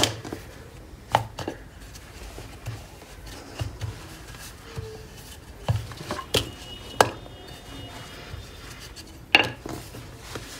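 Wooden rolling pin rolling out dough on a stone countertop, with a handful of sharp, irregular knocks as the pin strikes and is set down on the hard counter.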